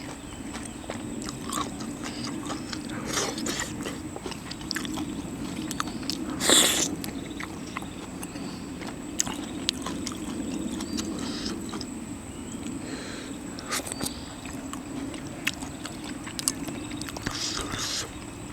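Close-miked eating of seafood: chewing and biting with scattered mouth clicks and smacks over a faint steady hum, and one louder noisy burst about six and a half seconds in.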